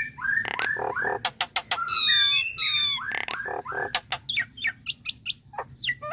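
A common myna singing: a varied run of gurgling notes, sharp clicks and whistles, with rapid repeated falling notes in the second half.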